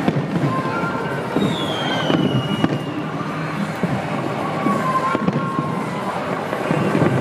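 Fireworks bursting over a large, noisy crowd of onlookers, with a sharp crack near the end. A falling whistle sounds about a second and a half in.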